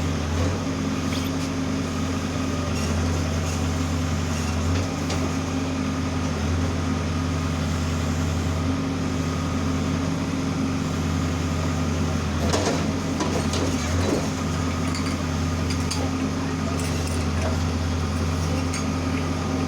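Case 570T backhoe loader's diesel engine running steadily, with a couple of short knocks about two-thirds of the way through.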